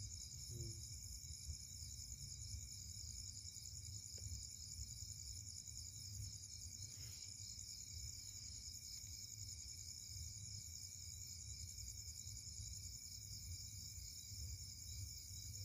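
Steady night chorus of crickets, a constant high trill with a fine pulsing, over a low rumble.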